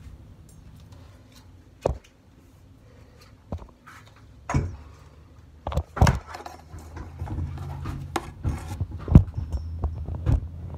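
Scattered knocks and clicks of things being handled in a small room, with a steady low hum coming in about seven seconds in.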